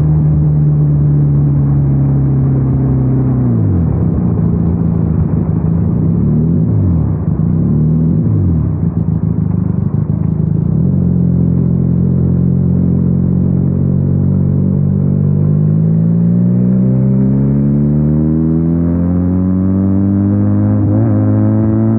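Benelli 302R motorcycle's parallel-twin engine under way. Its note drops about three to four seconds in as the bike slows and wavers for several seconds. It then holds steady and rises smoothly through the last several seconds as the bike accelerates.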